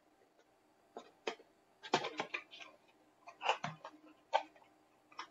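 Small kraft cardboard box being handled and opened by hand: a string of irregular taps, scrapes and rustles of cardboard, with a busier cluster about two seconds in.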